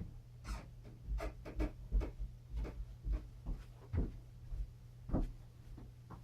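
Handling noise: about a dozen irregular light clicks, taps and rubs, spaced unevenly over a few seconds, over a steady low electrical hum.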